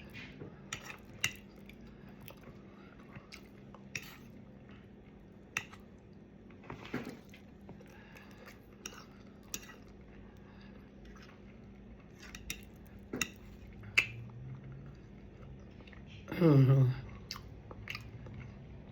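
Close-up chewing and mouth sounds of a person eating, with scattered sharp clicks and taps of utensils against a dish. Near the end comes a short voiced hum that falls in pitch.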